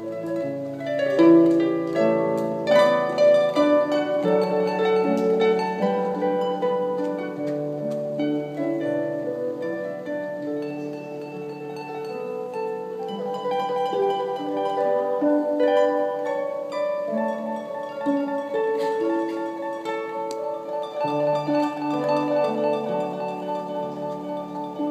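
Harp playing: plucked notes and chords moving steadily through a melody.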